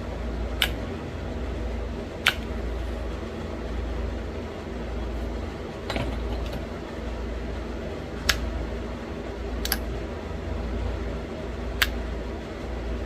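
Pressure flaking a small stone bird point: seven sharp clicks at uneven intervals, each a flake snapping off the edge. A steady low hum of a fan runs underneath.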